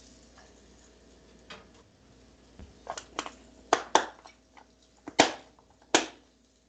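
Kitchen clatter: a string of sharp clicks and knocks from cookware and utensils being handled, the loudest in the second half, over a faint steady hum.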